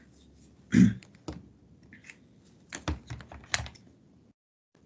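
Irregular clicks and taps of a computer keyboard and mouse, with one louder thump about a second in.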